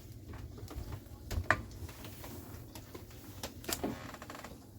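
Metal fuse-panel cover being handled and closed: one sharp click about a second and a half in, then a quick run of three lighter clicks and knocks near the end.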